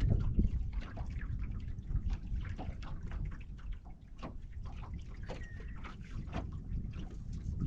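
Small waves lapping and splashing against a fishing boat's hull in irregular little slaps, over a steady low rumble of wind on the microphone.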